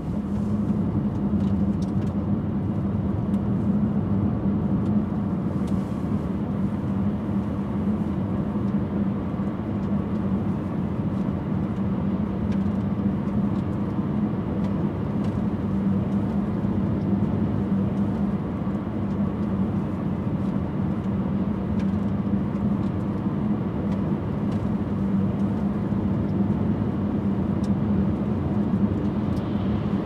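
Car driving at a steady speed: even tyre and road noise with a steady low hum.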